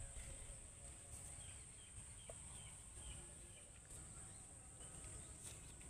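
Faint outdoor background: a few small birds chirping briefly in the distance over a steady high-pitched drone and low rumble.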